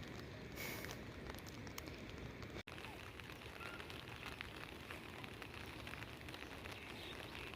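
Faint, steady outdoor background noise with scattered small clicks and ticks. It drops out for an instant about two and a half seconds in.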